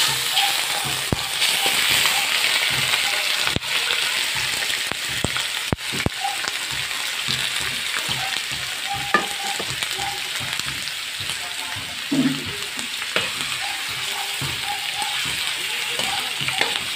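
Cubed pork sizzling in hot oil in a wok, strongest just after it goes in and then frying steadily. A few sharp clicks come from stirring.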